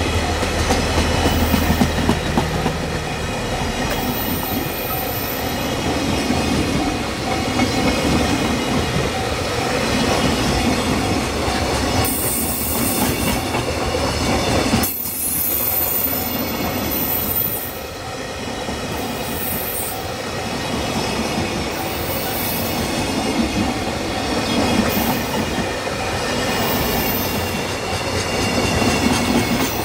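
Freight train's container flatcars (JR Freight Koki 104) rolling past close by: a steady rumble of steel wheels on rail that swells every couple of seconds as wheel sets go by, with a few brief, very high-pitched whines from the wheels.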